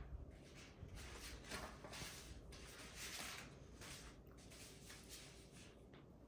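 Faint chewing of a soft pumpkin cookie, with light rustles of a hand on a cloth placemat: a series of soft, brief hisses a fraction of a second apart.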